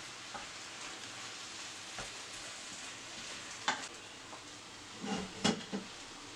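Faint steady hiss with a few light handling noises of kitchen utensils: a sharp click a little before four seconds, then a brief run of light knocks and a tick around five to six seconds as a spoon and a carton of liquid cream are handled over a glass bowl of chocolate.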